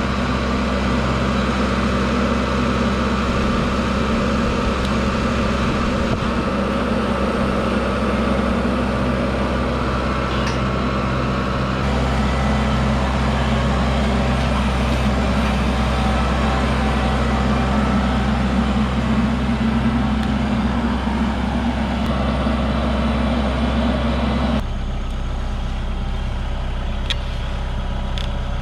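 Wood-Mizer LT15WIDE portable band sawmill running steadily under engine power, its level dropping a step near the end.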